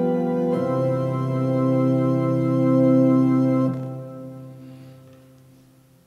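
Organ playing the last chords of a piece. The chord changes about half a second in, the final chord is held for about three seconds, then released, and it dies away in the room's reverberation over about two seconds.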